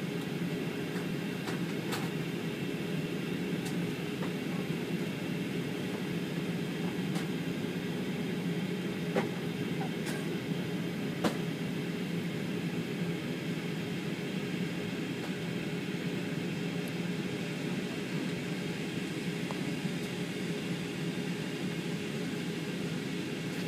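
Steady cabin noise inside an Airbus A320 airliner in flight: the even rush of engines and airflow, with a few faint clicks.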